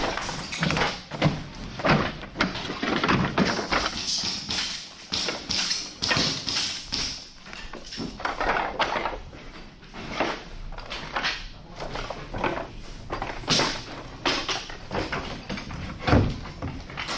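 Footsteps and rustling gear of an airsoft player on the move, with irregular knocks and scrapes.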